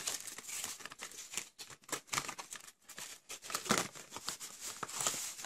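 A white cardboard gimbal box being opened at the end and handled: irregular rustling, crinkling and small sharp clicks of card and packaging.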